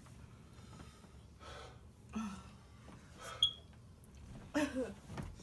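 A woman's short gasps and breathy sounds, a few seconds apart with the loudest near the end, as she reacts to the burn of very hot Blazin' wing sauce.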